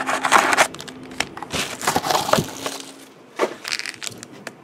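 Hands pulling foil trading-card packs out of a cardboard hobby box and setting them down on a table: irregular rustling, scraping and light knocks.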